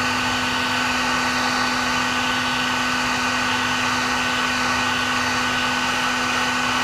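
Handheld electric heat gun running steadily, its fan blowing hot air in an even rush with a constant hum and a fainter high whine, as it heats a solder-seal heat-shrink butt connector on a wire.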